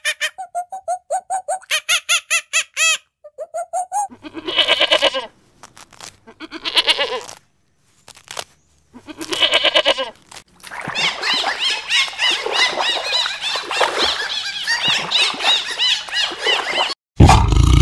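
A goat bleating three times, each call about a second long, after a run of quick, high squeaky chirps. Near the end comes a dense stretch of many overlapping squeaky calls.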